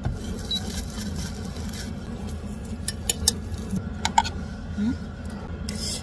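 A few light clicks and scrapes of utensils against a small frying pan, over a steady low hum.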